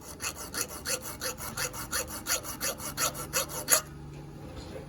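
Small hand file scraping a copper wire slug in quick back-and-forth strokes, about four a second, filing down excess metal so the slug can be peened flat as a rivet. The strokes stop a little before the end.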